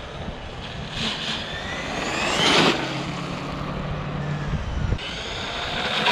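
Traxxas E-Revo 2.0 RC truck driving: its electric motor and drivetrain whine up and down twice, about two seconds in and again near the end, over rough tyre and driving noise.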